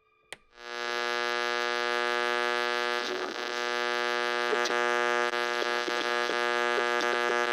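A sharp click, then a loud, steady electronic buzzing drone that sets in about half a second in and holds, with faint crackles through it: a horror-film sound-design cue.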